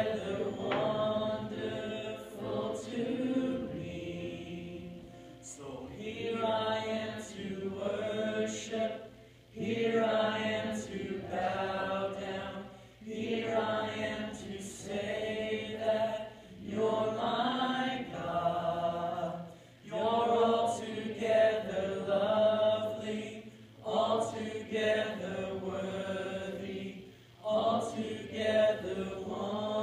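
Voices chanting in repeated phrases of a few seconds each, with short breaks between phrases.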